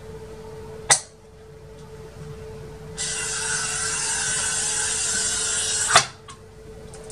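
Toyo glass cutter, its wheel lubricated with diesel, scoring a 12 mm glass pane along a straightedge: a steady high scratchy hiss for about three seconds that ends in a sharp click. Another single sharp click comes about a second in.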